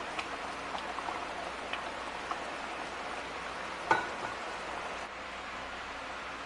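Thick tomato sauce simmering in an enamelled cast-iron pan: a steady hiss with scattered small pops as bubbles burst. One sharper, louder pop or click comes about four seconds in.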